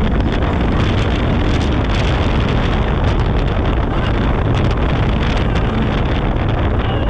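Side-by-side UTV driving over a rough dirt offroad track, heard from inside the open cab: steady engine noise with heavy wind buffeting on the microphone and frequent knocks and rattles from bumps.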